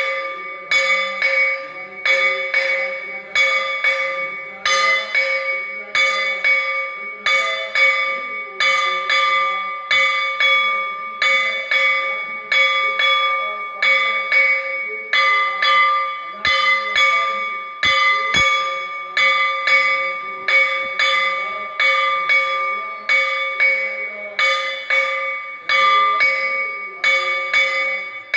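Metal temple bell rung steadily for aarti worship, struck about twice a second, each stroke still ringing when the next comes.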